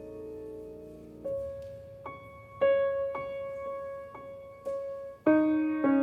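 Solo piano played slowly: a held chord fading away, then single notes struck one at a time in a quiet melody, and a fuller, louder chord about five seconds in.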